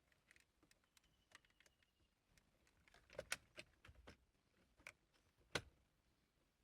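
Faint, scattered clicks and light knocks of plastic center-console trim being fitted and pressed back into place around the gear shifter, with a cluster of clicks about three seconds in and a single sharper click near the end.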